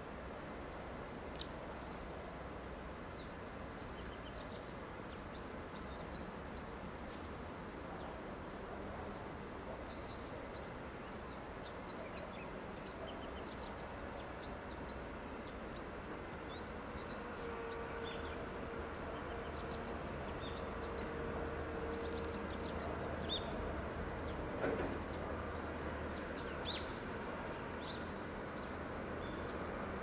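Many wild birds chirping and singing, with short calls scattered all through, over a steady outdoor background hum that grows a little louder in the second half. A few sharp clicks come near the end.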